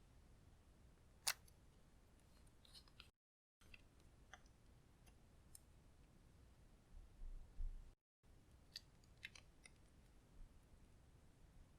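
Near-silent room tone broken by sparse small clicks and ticks of handling, one sharper click about a second in, and a few soft low thuds later on.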